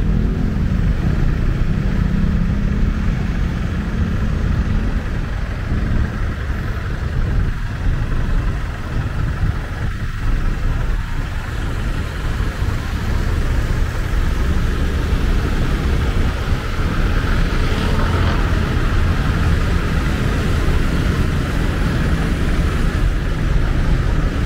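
Street traffic, cars and motorbikes passing, a steady low noise of engines and tyres, with one pass growing louder about two-thirds of the way in.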